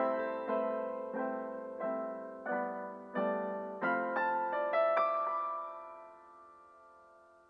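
Background piano music: single notes and chords struck at a slow, even pace, ending on a last chord about five seconds in that rings out and fades away.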